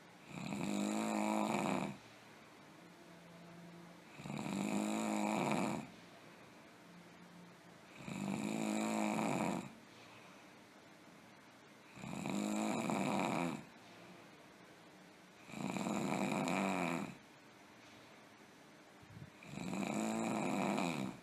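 A person snoring heavily: six snores about four seconds apart, each lasting a second and a half to two seconds, with quiet breathing gaps between.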